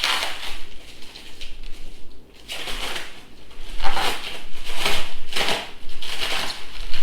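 Packing material rustling and crinkling as it is handled and pulled about, in irregular bursts, with a short lull about two seconds in.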